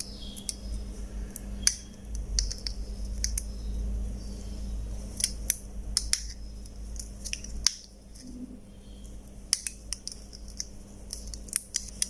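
Scattered short, sharp clicks and light plastic handling noise from a car remote key as its button is pressed and its parts are fitted together. The clicks come from testing the reinstalled push-button switch.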